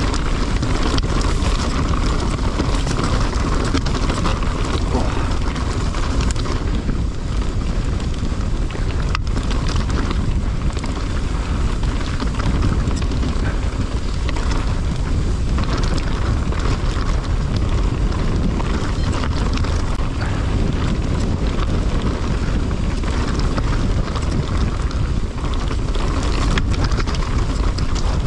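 Wind buffeting an action camera's microphone and a mountain bike's tyres rumbling over a rough, rocky trail at speed on a descent, with a few sharp knocks from the bike hitting rocks.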